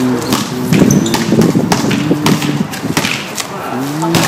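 Men's voices calling out, with scattered sharp knocks and thuds.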